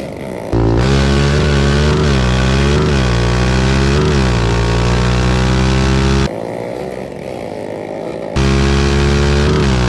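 ATV engine revving: the throttle is blipped up and down several times, then held at a steady rev. The sound drops away abruptly for about two seconds and comes back just as suddenly.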